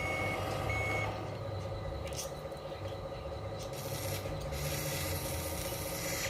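A radio-controlled model truck's reversing beeper sounds twice in the first second and then stops. A steady mechanical whine from the model runs on under it, with a few short clicks.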